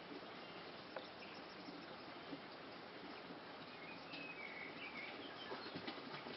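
Running water with a steady, faint rush, and a few short bird chirps over it around the middle, plus a single click about a second in.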